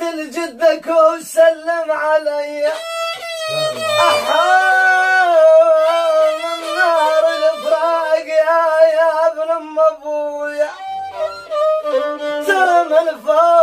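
Violin playing a melody of long held notes with pitch slides, and a man singing along with it.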